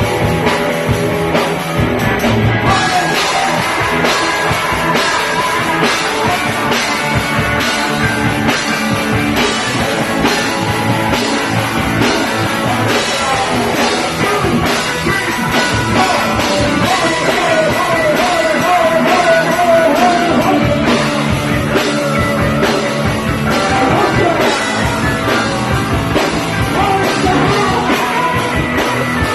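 Live punk rock band playing loudly: distorted electric guitars, bass and drum kit driving on, with shouted singing over the top.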